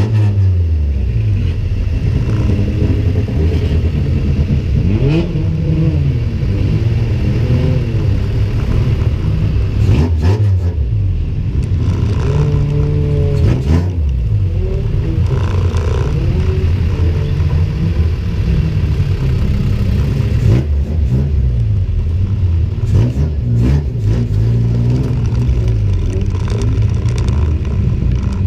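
A stripped-out race car's engine heard from inside the cabin, revving up and down over and over. A few short knocks come through as the car moves.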